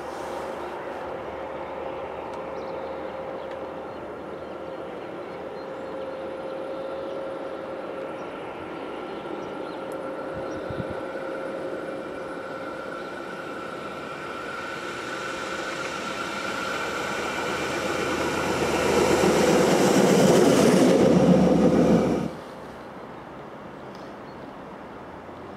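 Yellow rail maintenance vehicle running along the track, a steady hum with a held whine that grows louder as it approaches and passes close, then cuts off suddenly about 22 seconds in.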